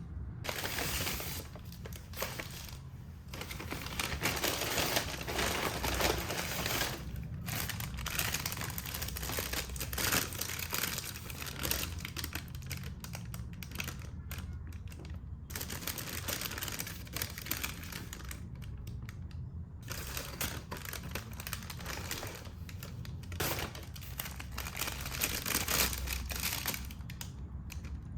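Packaging crinkling and rustling as it is handled, in stretches with short pauses between.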